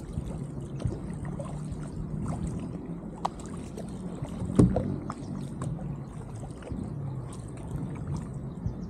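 Water lapping and splashing against a kayak's hull as it is paddled, with scattered small splashes and one louder thump about halfway through.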